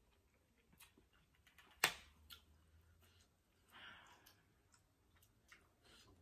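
Quiet eating sounds of spicy instant noodles: scattered mouth clicks and smacks while chewing, with one sharp click about two seconds in and a brief breathy sound near four seconds.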